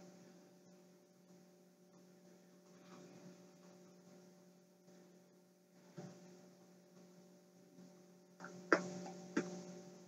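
Steady low electrical hum of the recording setup, with a few faint brief clicks: one about six seconds in and two close together near the end.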